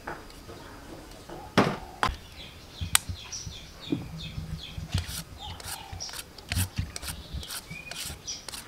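Kitchen knife peeling a carrot by hand, a quick run of short scraping strokes in the second half, with two sharper knocks in the first few seconds. A small bird chirps in the background, a string of short falling notes near the middle.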